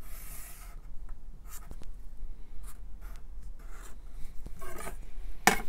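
Felt-tip Sharpie marker drawing lines along a ruler: several short, scratchy strokes one after another, then a sharper knock near the end.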